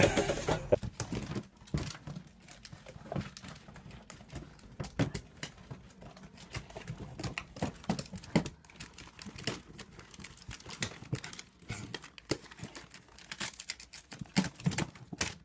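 Plastic bag and wrapping paper crinkling and rustling in irregular crackles as a small dog burrows into a tote bag of wrapping-paper rolls.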